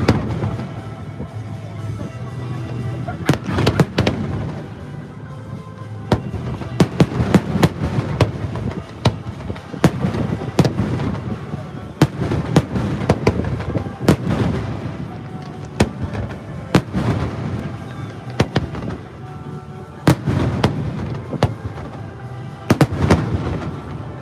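Fireworks exploding in a rapid, irregular barrage of sharp bangs and crackles. Music and voices sound underneath.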